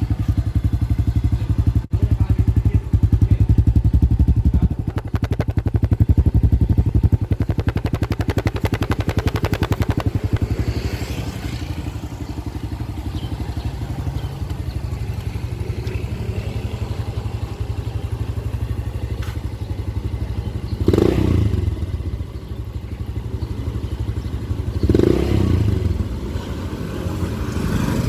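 Kawasaki Fury 125 single-cylinder four-stroke engine running through a kalkal pipe, a gutted aftermarket muffler, with a rapid, even popping exhaust beat. It is louder for the first several seconds, then settles to a steady idle, with three short throttle blips in the second half.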